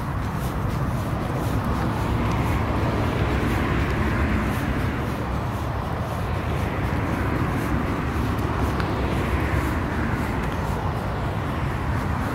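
Street traffic passing: cars' engines and tyres make a steady noise that swells as vehicles go by, twice, and eases between them.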